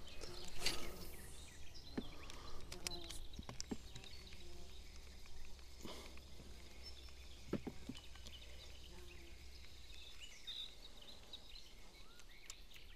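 Quiet outdoor ambience with a steady low rumble, a brief swish about a second in, scattered light clicks and knocks, and faint bird chirps near the end.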